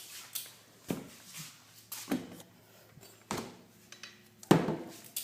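A BMX bike being handled and turned around: a few sharp knocks and rattles about a second apart, the loudest near the end.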